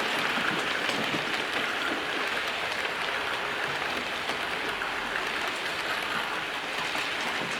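Hornby OO-gauge model train running along the track, a steady rolling noise of wheels on rail and the small motor.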